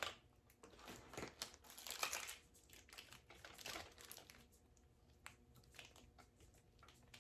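Faint crinkling and rustling of packaging being handled, with scattered small clicks and knocks, busiest in the first four seconds.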